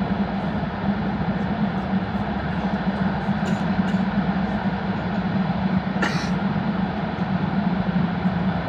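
Cabin noise inside an E5 series Shinkansen running through a tunnel: a steady rumble with a low hum. There is a brief click about six seconds in.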